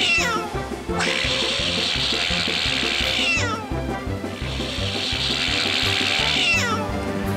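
A cartoon water jet gushing with a loud hiss, in three spurts. Each spurt ends with a cat's yowl that falls steeply in pitch: near the start, about three seconds in, and near the end. Background music with a steady beat runs underneath.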